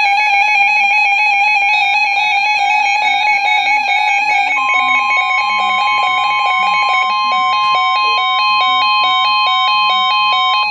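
Emergency Alert System attention tone: a steady, loud electronic tone with a fast pulsing texture. A second, higher steady tone joins about halfway through, and both cut off near the end, just before the spoken warning.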